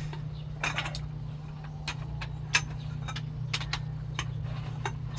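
Light metallic clicks and clinks of hand tools and small metal parts being handled, a dozen or so scattered taps over a steady low hum.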